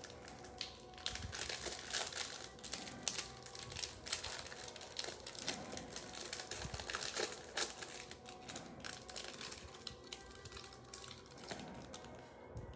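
Crinkling wrappers and cardboard packaging being handled and torn open, with many small irregular rustles and clicks, as trading-card packs are opened.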